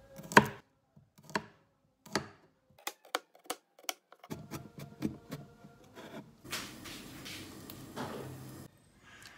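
Chef's knife slicing garlic cloves on a wooden chopping board: a few single cuts about a second apart, then a quicker run of blade knocks on the board. Later there are about two seconds of the steady hiss and bubbling of water boiling in a pot, which cuts off shortly before the end.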